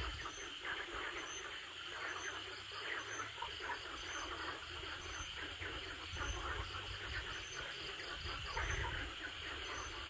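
A chorus of insects chirping, with a faint high call repeating about once a second, over a low rumble.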